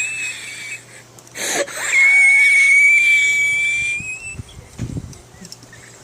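A person's high-pitched whistling wheeze on the breath: a short wheeze, a sharp breath about a second and a half in, then one long wheeze of about two seconds that rises slightly at its end, which the uploader puts down to bad asthma. A few soft low thumps follow near the end.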